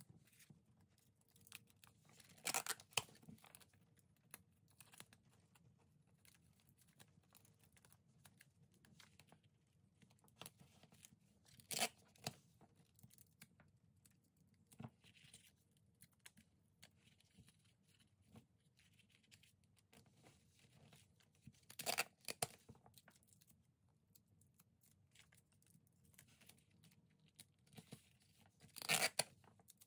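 Clear adhesive tape (Tesafilm) pulled off a desk dispenser and torn off, four short tearing pulls several seconds apart, with faint handling of tape and plastic pieces between them.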